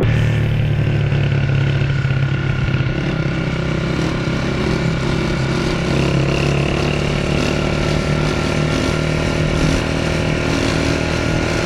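Motorcycle engine running at a steady pitch, with a slight change in pitch about halfway through.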